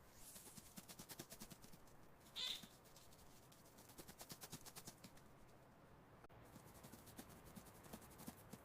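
Faint, rapid mouse scratching and pattering, with one short high-pitched mouse squeak about two and a half seconds in.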